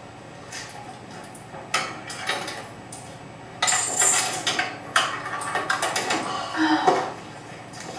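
Clatter and knocks of small hard objects from a student-built Rube Goldberg machine, heard through the classroom's playback speakers: scattered sharp clicks at first, then a dense run of rattling from about halfway through.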